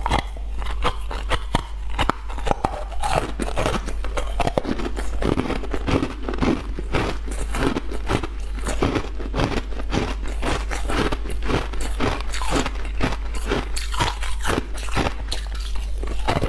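Frozen green-coloured ice balls being bitten and chewed, a rapid, irregular run of crisp crunches, several a second, picked up close by a lapel microphone.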